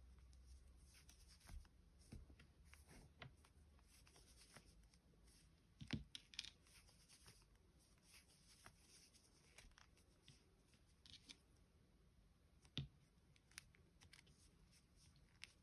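Near silence with faint ticks and soft scratchy rustles of a metal crochet hook working chenille yarn, stitch after stitch, and two sharper clicks, one mid-way and one later.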